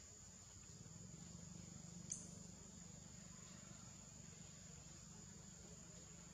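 Faint, steady high-pitched drone of insects in forest, over a low rumble, with one brief click about two seconds in.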